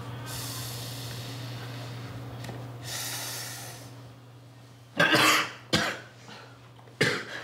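Long breathy draws of breath, then a woman coughing in short harsh bursts about five and seven seconds in after trying an electronic cigarette, over a steady low electrical hum.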